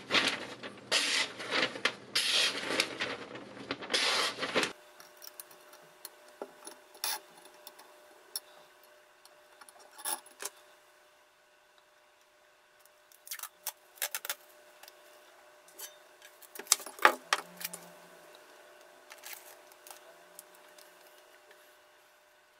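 A loud, noisy, pulsing rush for about the first five seconds that cuts off abruptly. Then quiet scattered clicks, taps and knocks of hands handling a kitchen knife and a foam block beside a clamping knife-sharpening jig, loudest a little past the middle.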